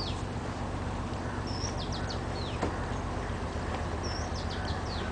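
Steady low drone of the boat's motor, with a bird calling over it twice: each call a short high note followed by a quick run of three or four descending chirps.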